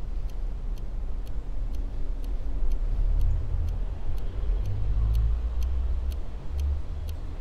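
A deep, low rumbling drone with a clock ticking steadily, a little faster than twice a second.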